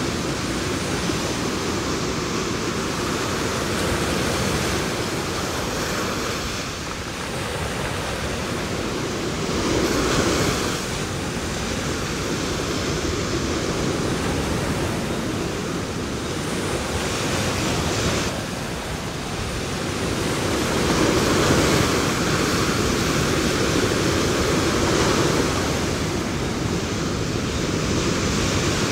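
Ocean surf: waves breaking and washing ashore in a continuous rush, swelling louder several times as larger waves come in.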